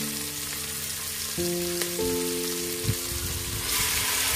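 Vegetables sizzling in hot oil in a rice cooker's inner pot, a steady hiss, with a soft thump about three seconds in as more chopped vegetables drop in. Background music of sustained notes plays over it.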